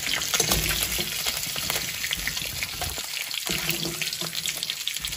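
Pork pieces sizzling and crackling in the fat rendered out of them in a steel kadai, with a slotted steel spoon scraping and clinking against the pan as the pieces are lifted out.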